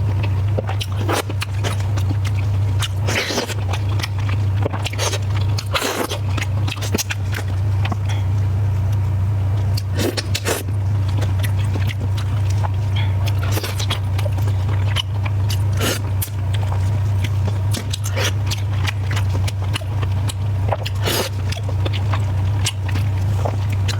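A person chewing and biting food close to the microphone: irregular wet smacks and clicks of eating, over a steady low hum.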